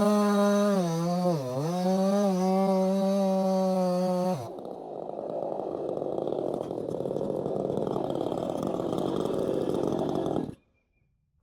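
A 68cc two-stroke chainsaw running at high revs. Its pitch dips briefly about a second and a half in, as if it is loaded in a cut. A little over four seconds in, the engine note cuts off suddenly and a steady rushing noise without a tone takes over. That noise ends abruptly near the end.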